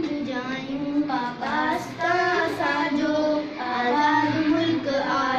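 Schoolgirls' voices chanting a Sindhi poem in a sung melody, with held and gliding notes.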